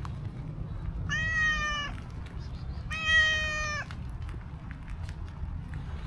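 Domestic cat meowing twice, two drawn-out meows of just under a second each, about two seconds apart, over a low steady background rumble.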